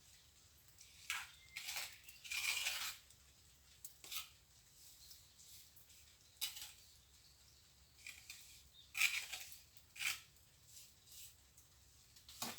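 Steel plastering trowel scraping and spreading cement mortar in short, irregular strokes.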